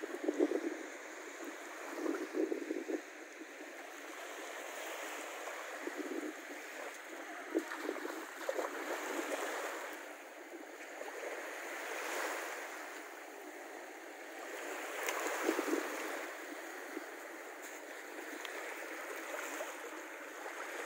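Small waves washing in steadily on a sandy shore, swelling and easing, with short bouts of splashing as a child wades out into the shallow sea.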